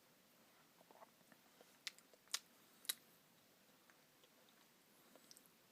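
Faint eating sounds of a mouthful of Blizzard ice cream: quiet chewing with three short sharp clicks in quick succession about two seconds in.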